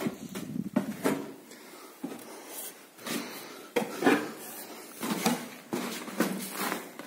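Footsteps crunching and scuffing over snow and debris on a floor, irregular, roughly one step a second.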